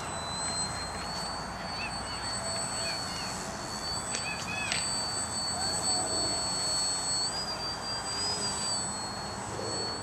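Electric RC foam stunt plane's motor whining at a high, steady pitch that steps up slightly about a second in and again around seven seconds, over wind noise on the microphone.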